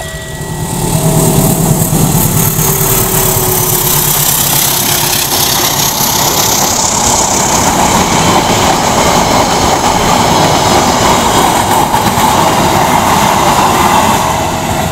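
Diesel locomotive-hauled passenger train passing over a level crossing: the locomotive's engine comes first, then a long steady roar of the carriages' wheels on the rails that eases near the end. The crossing's warning siren sounds faintly underneath.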